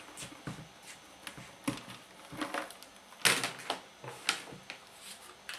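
Scattered clicks and knocks of a cable clip being unhooked and a detachable speaker cabinet being pulled off a portable record player's case, with two louder knocks, one a little past three seconds in and one just past four.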